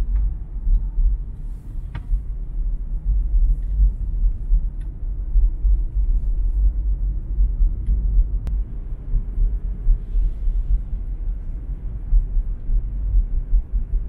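Low, unsteady rumble heard from inside a moving car: road and engine noise, with a few faint clicks.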